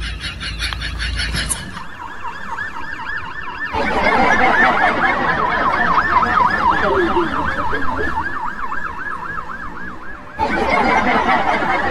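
Emergency siren in a fast rising-and-falling yelp, several sweeps a second. It changes tone about a second and a half in, gets louder about four seconds in, and dips briefly near the end.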